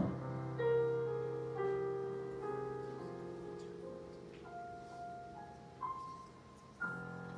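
Solo piano playing slow, soft notes, a new note or chord about every second, each ringing on and fading.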